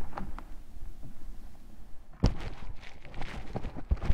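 Footsteps and a few sharp thumps over a steady low rumble, the loudest thump a little past halfway.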